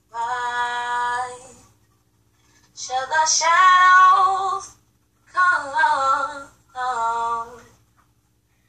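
A girl singing unaccompanied: four long, held phrases with short pauses between them, the second one the loudest.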